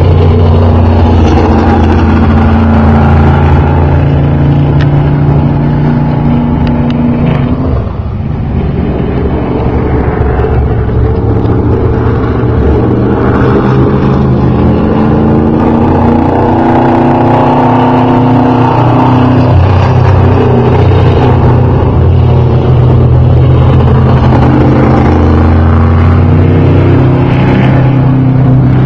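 Open-wheel modified race car's engine running hard on practice laps. The note falls away briefly about eight seconds in, then rises again as the car accelerates, and holds steady.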